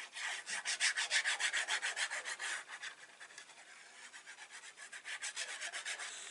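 Rapid, rhythmic rasping strokes of paper being worked by hand, several strokes a second. They ease off in the middle and pick up again near the end.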